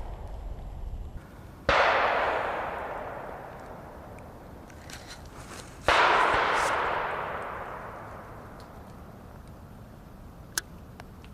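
Two loud Korsar-10 firecracker bangs about four seconds apart, each followed by a long echo fading away over several seconds. A faint sharp click near the end.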